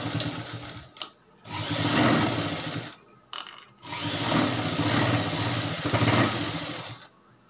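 Pioneer sewing machine running in three bursts of stitching, stopping briefly between them, as a second row of stitching is sewn along a blouse neckline.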